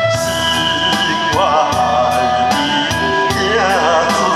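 A man singing with vibrato into a microphone over a recorded karaoke-style backing track with a steady drum beat; his voice comes in a little over a second in.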